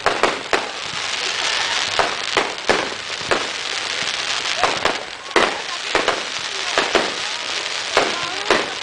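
Aerial fireworks display: about fourteen sharp bangs at uneven intervals over a continuous crackling hiss from the bursting shells.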